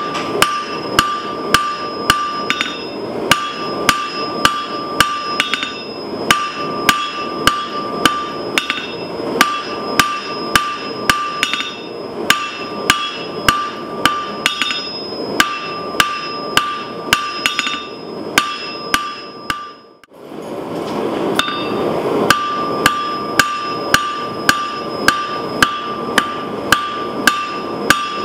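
Hand hammer striking a small bar of red-hot metal on an anvil, about two blows a second, each blow leaving the anvil ringing at a clear high pitch. The blows pause every few seconds and break off for a moment about two-thirds of the way through, then resume at the same pace.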